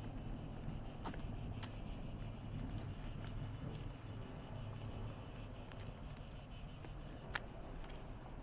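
Cicadas singing in Mediterranean pine trees: a steady, high, rapidly pulsing buzz over a low rumble, with a few faint ticks and one sharp click about seven seconds in.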